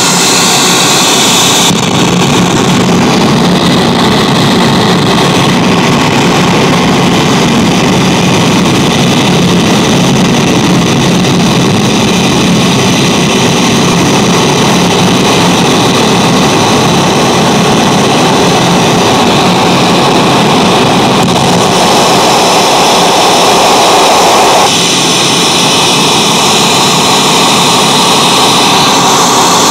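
Loud, continuous electronic noise from a Xiaojia Studio noise generator pedal played through a NUX Atlantic effects pedal and a Yamaha THR guitar amp. Its tone changes abruptly twice: the top end drops away about two seconds in, and the texture shifts again near the end.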